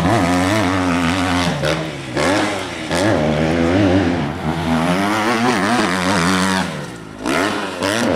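Motocross bike engine revving hard on a dirt track, its pitch climbing and dropping again and again as the rider opens and closes the throttle and shifts, with short drops in level about two seconds in and near seven seconds.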